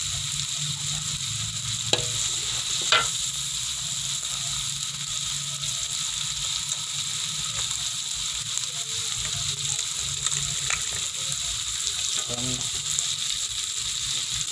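Sliced onion and green chili sizzling steadily in hot oil in a wok. A metal spatula clicks and scrapes against the pan a few times, most sharply about two and three seconds in.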